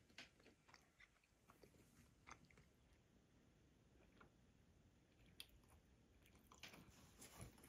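Near silence, with a few faint, scattered clicks over a low room hum.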